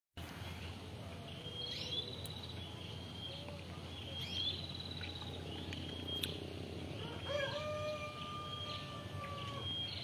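Small birds singing short, repeated high phrases about every two seconds. A rooster crows once, about seven seconds in, in one long drawn-out call, over a steady low background hum.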